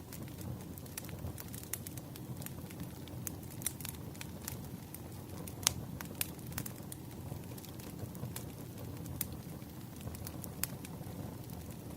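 Burning firewood crackling: irregular sharp pops over a steady low rumble of the flames, with one louder pop about halfway through.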